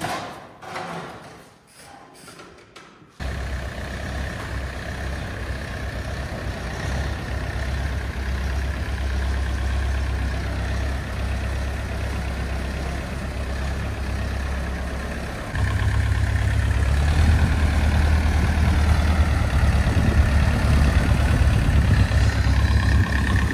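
A few knocks, then a heavy farm machine's engine starts abruptly about three seconds in and runs steadily; about two-thirds of the way through it gets louder, revved up.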